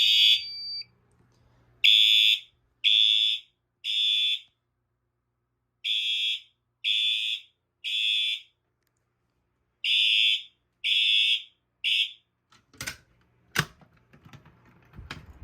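Fire alarm horns sounding the temporal-three evacuation pattern: three blasts, a pause, repeated three times, the last blast cut short as the horns stop. Two sharp clicks follow near the end.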